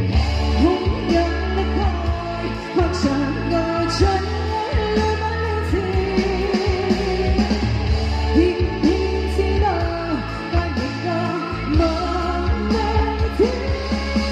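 A woman singing a Chinese pop song live into a microphone over loud amplified backing music with a heavy bass beat. The bass drops out briefly about three quarters of the way through.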